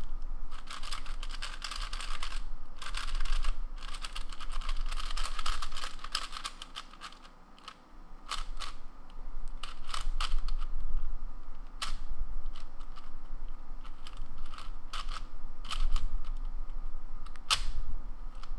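YJ Yusu R 4x4 speed cube being turned by hand for its first turns out of the box: quick runs of plastic clicking and clacking as the layers turn, with a short lull about seven seconds in. The new cube is tight, with a blocky feel, and locks up often.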